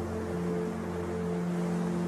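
Soft ambient meditation music: a slow drone of held, overlapping tones, with a steady wash of ocean-wave noise underneath.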